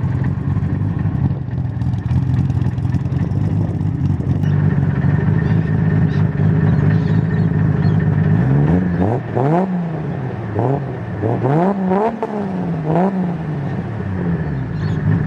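Freshly rebuilt Toyota 1JZ straight-six in a JZX100 Chaser running steadily, then revved up and down five or six times in quick succession, about one a second, from a little past the middle.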